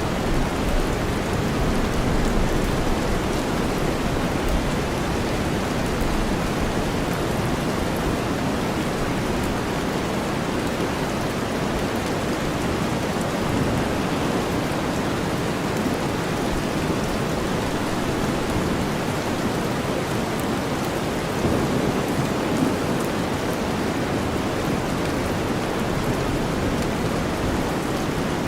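Steady rain mixed with deep white noise, an even, unbroken hiss weighted toward the low end with a fine patter of drops over it.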